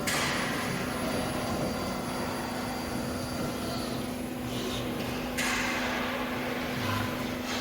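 Steady low machine hum over an even background noise, with a sudden hiss at the start and another about five and a half seconds in.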